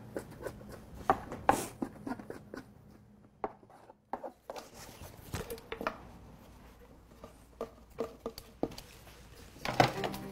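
Irregular light taps and knocks of sushi preparation: kitchen utensils and a knife working on a cutting board, with a brief lull a few seconds in.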